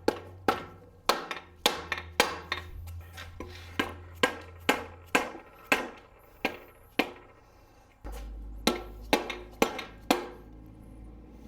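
Hammer blows on an air-cooled VW engine case, striking it to split the case halves: sharp ringing knocks at about two a second, with a short pause about seven seconds in before a last quicker run.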